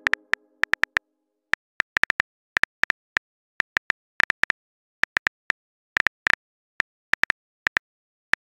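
On-screen phone keyboard key clicks tapping out a text message, dozens of short sharp clicks at an uneven typing pace.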